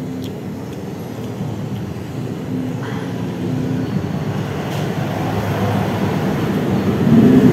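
Steady low engine rumble of a motor vehicle that grows gradually louder, rising more sharply near the end.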